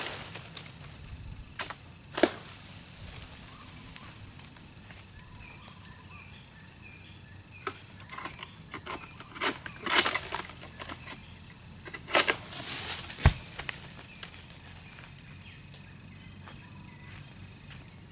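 Steady high insect buzz, with a scattering of short sharp hacks and scrapes from an egrek, a curved sickle blade on a long pole, working at the frond bases and fruit bunch of an oil palm. The strokes come in clusters, the busiest about ten seconds in and again around twelve to thirteen seconds, ending with one sharp knock.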